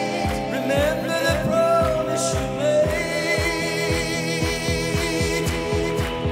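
Live pop-rock band playing: a male voice singing over electric guitars and a steady kick-drum beat.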